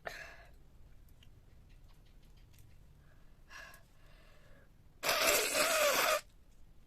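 A person blowing their nose hard once, a steady forceful rush of air lasting just over a second, about five seconds in. Fainter short sounds come before it.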